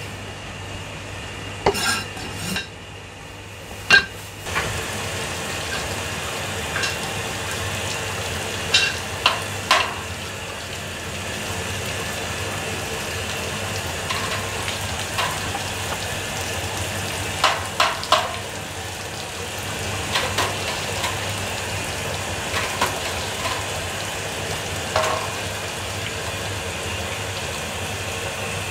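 Clinks and knocks of food and utensils handled in a stainless steel tray and foam takeaway boxes, a few sharp ones scattered through, over a steady background hum.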